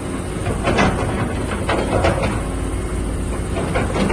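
Doosan DX225 excavator's diesel engine running steadily, with a few sharp metallic knocks from the machine over it.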